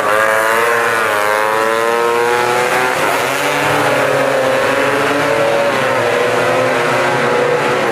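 Tuned two-stroke racing scooter engines at high revs. Their pitch dips about half a second in, rises again and then holds high with a slight waver.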